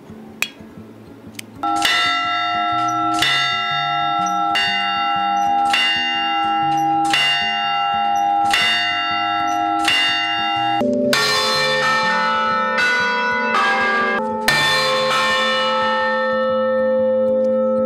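Church tower bells ringing. After a few faint clicks, a bell is struck in a quick, even rhythm, about three strokes every two seconds, each stroke ringing on. Around the middle a lower-pitched bell takes over with slower, uneven strokes, and the last one is left to ring out.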